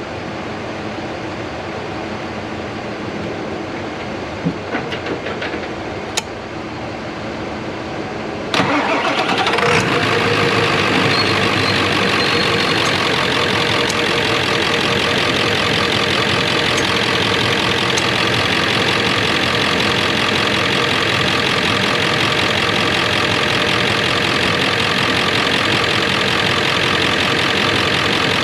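Ford 7.3 Powerstroke V8 turbo diesel cranking and starting about eight and a half seconds in, then idling steadily. Before the start there is a steady background noise with a few light clicks.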